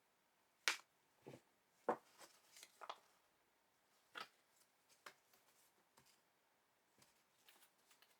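Handling noise from unboxing: scattered sharp clicks and taps with light rustling, as packaging and small plastic parts are picked up and set down. The loudest click is about a second in, with another strong one just before two seconds.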